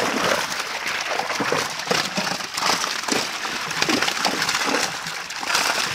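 Many fish thrashing in a tightly drawn fishing net, making a dense, continuous crackle of splashing water.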